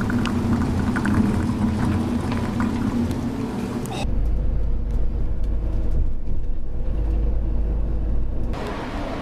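A steady hum with scattered clicks, then, about four seconds in, the low rumble of a vehicle driving at road speed, heard from inside the cabin.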